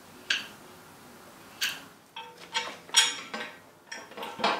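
A grease gun being handled and fitted to a grease fitting on a sickle-bar mower head: a series of sharp metallic clicks and clinks, about eight in all, coming faster in the second half.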